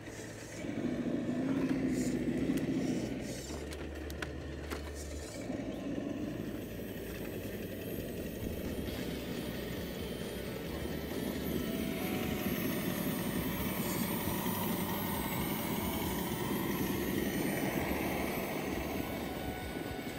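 Radio-controlled scale crawler truck running, its small electric motor and gearbox whining and wavering in pitch as it crawls over logs. There are a few clicks in the first seconds.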